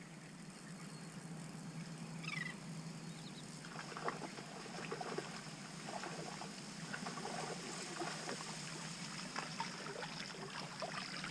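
Small waves lapping and trickling at the water's edge, an irregular patter of little splashes that grows busier after a few seconds.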